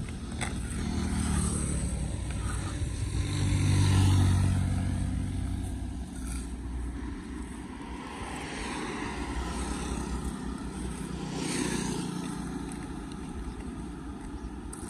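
Street traffic: motor vehicles passing by on the road, one loudest about four seconds in and another near twelve seconds, over a steady background of traffic noise.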